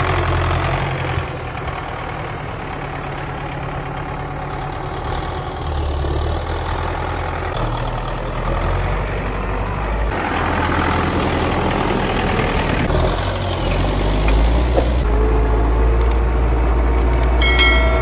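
Belarus 820 tractor's four-cylinder diesel engine running steadily under load while pulling a mounted plow through the soil. Its pitch and level shift abruptly a few times.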